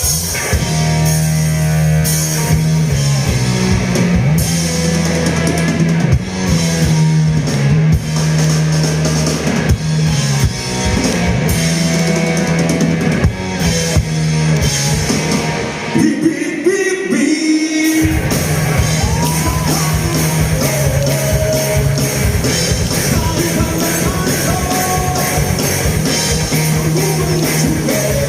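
Live rock band playing with electric guitar, bass and drum kit under a sung vocal line. About two-thirds of the way through the bass drops out for a short break, then the full band comes back in.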